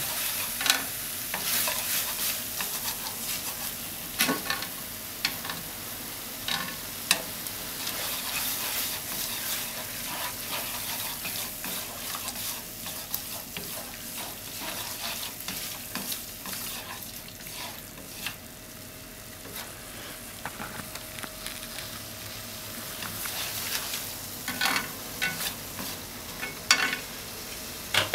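Ham, tofu and egg sizzling in a nonstick frying pan while being stirred and broken up with chopsticks, which click sharply against the pan now and then.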